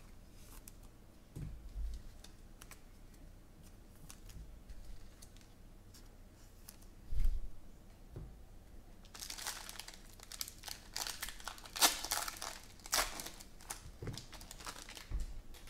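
Foil trading-card pack wrappers crinkling and being torn open, a dense run of crackling from about nine to thirteen seconds in. Before it come a few soft thumps of cards and packs being set down, the loudest about seven seconds in.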